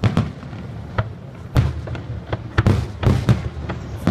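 Aerial fireworks shells bursting in a quick, irregular series of booms and cracks, about eight in four seconds, coming closer together in the second half.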